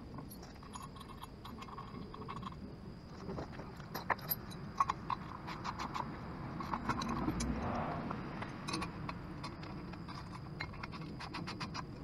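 Socket ratchet clicking in short quick runs as bolts are tightened at the hydraulic cylinder and pivot-arm mounts of a steel hitch-mount crane, with light metal clinks of the parts.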